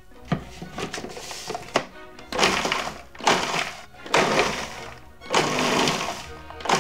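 Food processor pulsed in short bursts, about once a second, chopping butter, oats, flour and sugar into a crumble topping, with background music under it.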